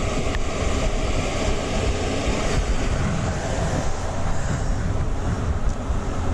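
Steady rushing noise with a heavy low rumble: wind buffeting the microphone over water running through a concrete spillway.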